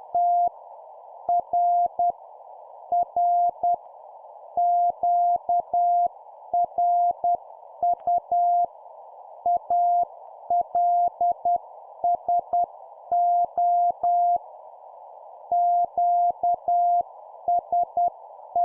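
Morse code (CW) sent at about 10 words per minute: a single steady tone of about 700 Hz keyed on and off in dots and dashes, over a steady bed of narrow-band hiss, with faint clicks as each element starts and stops.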